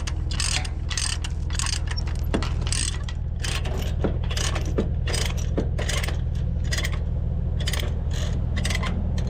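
Ratchet chain binder being cranked to tighten a tie-down chain: a long run of ratcheting clicks, two or three a second, with a couple of short pauses. A steady low engine hum runs underneath.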